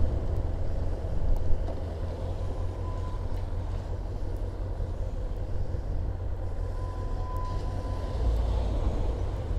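Kawasaki ZX-6R motorcycle on the move: steady wind rumble and road noise on the rider's microphone over the engine running at a constant speed.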